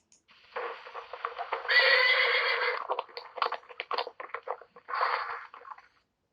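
Horse whinnying: one long neigh, loudest about two seconds in, breaking into a rapid run of short pulses, then a shorter call near the end.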